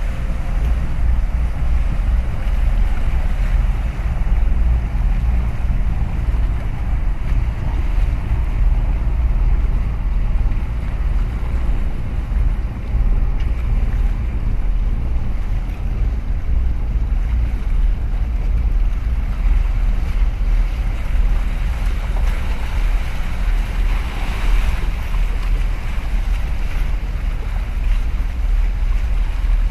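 Wind buffeting the microphone with a steady low rumble, over choppy harbour water washing against concrete breakwater blocks; a wave swells up a little louder near the end.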